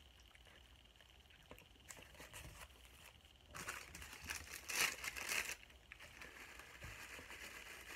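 Food packaging crinkling as it is handled, with a few light handling clicks at first and a loud crinkling stretch of about two seconds in the middle.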